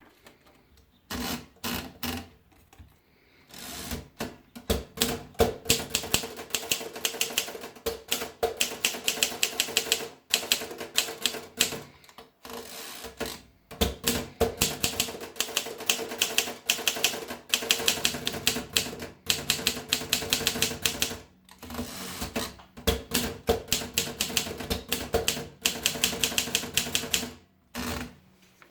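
Continental 350 portable manual typewriter being typed on: runs of rapid key strikes, several to the second, broken by short pauses.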